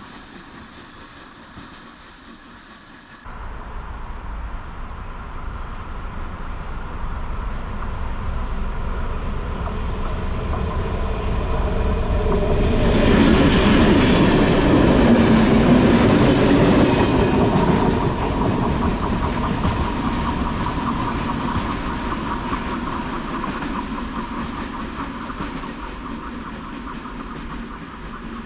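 A diesel locomotive and freight wagons passing close by, with wheels clacking over the rails. The sound jumps abruptly in level about three seconds in, builds to its loudest about halfway through as the locomotive goes past, then slowly fades as the train moves away.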